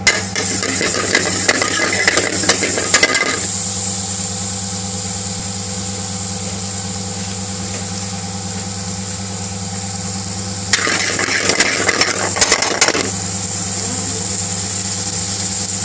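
Hot oil sizzling and crackling in an aluminium pan, loudest in two spells: for the first three seconds or so and again from about eleven to thirteen seconds in, as chopped onions go into the oil. A quieter sizzle runs between them, over a steady machine hum.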